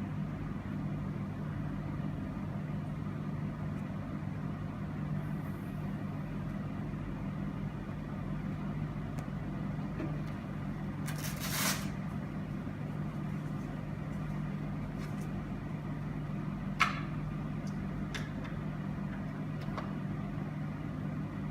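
Steady low electrical or mechanical hum of room equipment, with a short hiss of air about halfway through and a sharp click a few seconds later.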